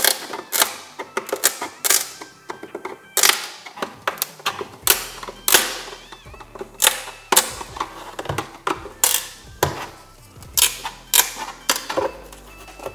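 Plastic of a BMW X5 E70 LED tail light cracking and snapping in irregular sharp clicks, several a second, as a screwdriver pries the lens away from the glued housing. The lens is cracking as it comes off.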